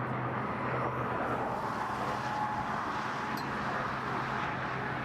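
Steady road traffic noise from passing vehicles, with a low engine hum that fades out about a second in.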